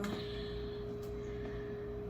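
Steady low background hum with a faint constant tone, like an appliance or electrical hum.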